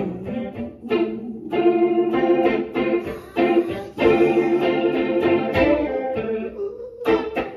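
Stratocaster-style electric guitar played through an amp, with long held melody notes over it through a hand-cupped microphone.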